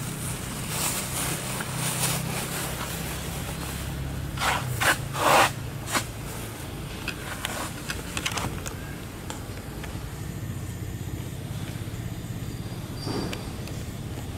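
A low, steady engine-like hum, with a few short, loud noisy bursts about five seconds in and some faint clicks after.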